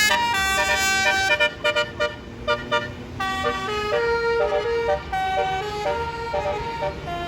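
Bus 'basuri' telolet horn, a multi-note air horn, playing a quick tune of stepped notes, several at once. The notes come thick and loud for about two seconds, then slower and a little softer.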